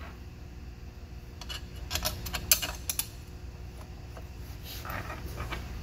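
Steel water pump mounting bolts clinking and ticking against metal as they are handled and set into their holes by hand. A handful of sharp clicks comes about two to three seconds in, with a few fainter ones near the end.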